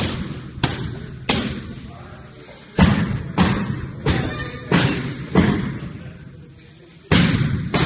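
Kicks and punches landing on Muay Thai strike pads and a kick shield: a run of about eight heavy, irregularly spaced thuds, each trailing off in a short echo.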